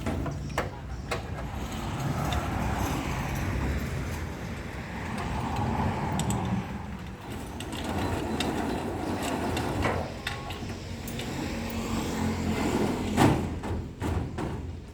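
Engine of a small farm machine running steadily, with scattered metallic clicks and knocks and one louder knock about 13 seconds in.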